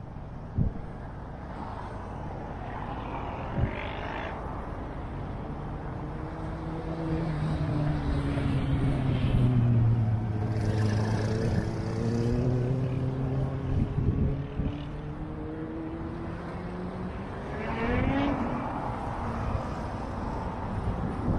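Street traffic with a motor vehicle's engine passing close. Its pitch slides down about a third of the way in, then climbs again, rising sharply near the end, over a steady traffic hum.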